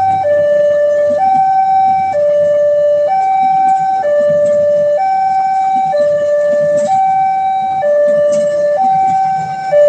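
Railway level-crossing barrier siren sounding a two-tone alarm that alternates between a higher and a lower tone about once a second. It is the warning that a train is approaching and the gates are closing.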